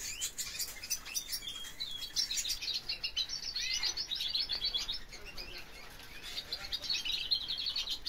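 Young Spanish Timbrado canaries singing early, still-forming song: two runs of fast repeated high notes and trills, with a short lull in between, some notes already coming out clearly.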